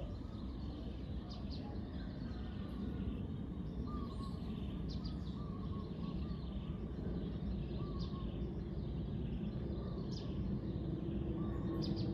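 Steady low rumble of outdoor background noise with scattered short bird chirps and calls; a steady low hum comes in near the end.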